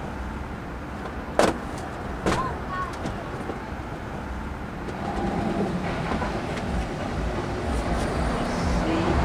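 Street traffic, with a vehicle rumble growing louder through the second half. Two sharp knocks stand out about one and a half and two and a half seconds in.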